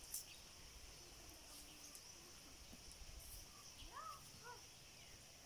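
Near silence: quiet rural ambience with a faint steady high-pitched insect hum, a tiny click right at the start, and two short faint chirps about four seconds in.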